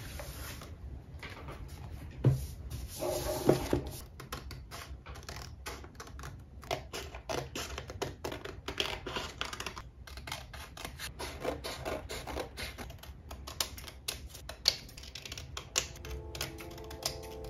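Scissors snipping through sheets of printed photos in quick, repeated cuts, with the paper rustling as it is handled. Music comes in near the end.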